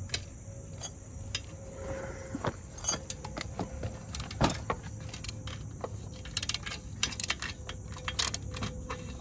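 Socket ratchet clicking and metal tools clinking as the exhaust header nuts are worked off their studs. The clicks are irregular, with quicker runs of ratchet clicks in the second half.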